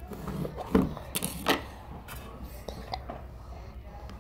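Plastic slime tubs handled on a counter: a lid pressed and pulled off and containers knocked, giving several sharp clicks and knocks in the first two seconds, then quieter rustling.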